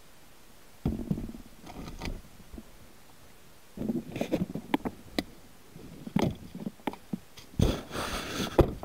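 Handling noise from an RC boat with a mini camera strapped to its hull: irregular knocks, bumps and rubbing as the boat is picked up and carried, loudest near the end.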